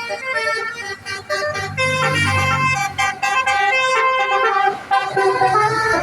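Basuri telolet bus horn, a multi-tone air horn, playing a quick melody of stepped notes. A low rumble runs underneath about two seconds in.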